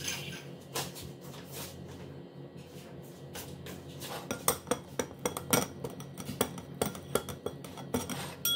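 Metal kitchen utensils and dishes clinking and clattering, a few light knocks at first, then a quick run of sharp clinks through the second half.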